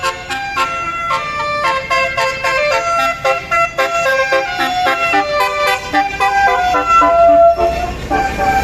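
Bus basuri telolet horn playing a fast multi-note melody, short pitched notes stepping up and down several times a second. A low engine rumble builds underneath near the end.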